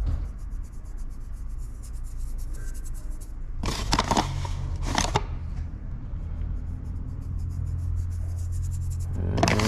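Handling noises from dividing pizza dough on a work surface, over a steady low hum: faint rapid ticking throughout, with two louder scraping knocks about four and five seconds in.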